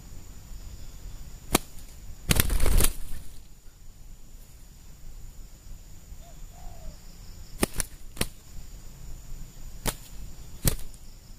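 Spotted doves scuffling on the ground: a brief flurry of wing flapping a little over two seconds in, and several sharp single wing slaps spread through, with one faint short coo midway.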